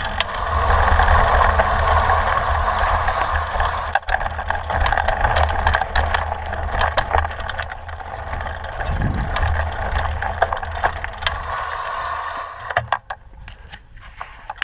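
Mountain bike riding over a rocky dirt trail, heard from a handlebar-mounted camera: steady tyre noise on gravel with many small clicks and rattles from the bike, over a low rumble. It gets quieter about thirteen seconds in.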